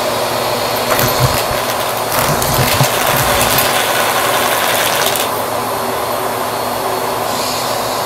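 Bissell vacuum cleaner running steadily with its hose nozzle over carpet and coins. A few sharp clicks in the first few seconds are coins knocking against the nozzle. The high suction hiss drops away for a couple of seconds past the middle.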